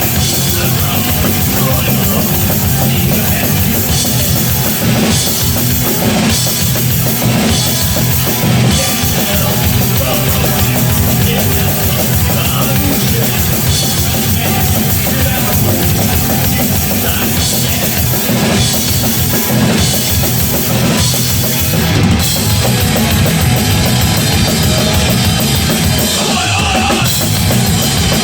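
Hardcore punk band playing live and loud: distorted electric guitars and bass over a fast, hard-hit drum kit, without a break.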